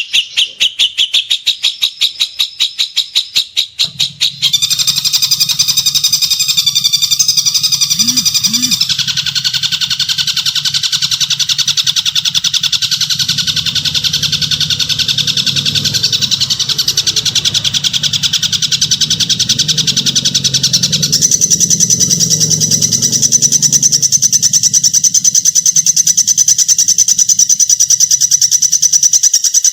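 Songbird masteran tutor song, rapid and harsh ('kasar'). It opens with fast repeated notes, then after about four seconds turns into a dense run of quick buzzy and whistled notes. The pattern changes twice more over a low hum.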